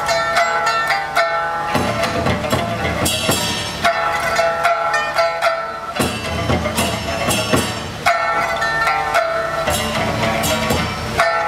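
An ensemble of pipas, Chinese pear-shaped lutes, playing a traditional piece with rapid plucked notes.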